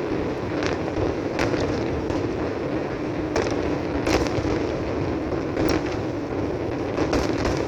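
Fireworks display heard from a distance: a continuous low rumble of overlapping bursts, with sharp cracks every second or so, the loudest about halfway through. Recorded on a phone's microphone.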